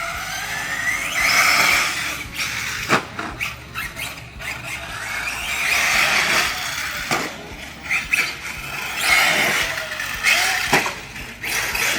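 Traxxas Sledge 6S RC truck's brushless electric motor whining as it revs up and down over and over, with bursts of hiss from the tyres and a few sharp knocks.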